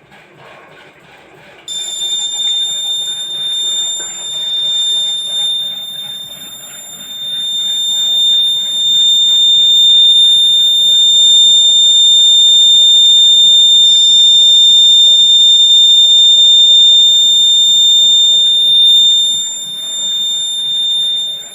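Piezo buzzer of a BC547 transistor rain detector alarm sounding: a loud, steady high-pitched beep that switches on suddenly a second or two in and keeps sounding, its loudness wavering for the first several seconds before holding steady. The buzzer sounding signals that water is bridging the two blade contacts of the sensor.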